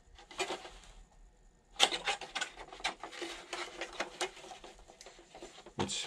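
Plastic body and wheels of a WPL D12 RC truck being handled and turned over on a table: light clicks, knocks and rubbing of plastic, with a sharper knock about two seconds in and another near the end.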